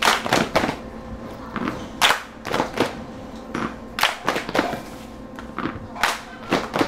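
Sparse percussion beat: a sharp hit about every two seconds, each followed by a lighter hit about half a second later, over a faint steady hum.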